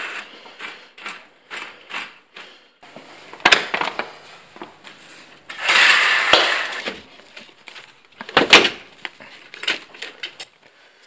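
Clicks, knocks and scraping from a house's doors, windows and blinds being handled while the camera is carried through the rooms. There is a sharp click about three and a half seconds in, a longer scraping rush around six seconds, and a loud knock about eight and a half seconds in.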